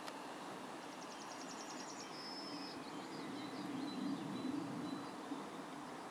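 Small birds singing, a fast high trill and then thin whistled notes, over a low steady rumble that swells about four seconds in.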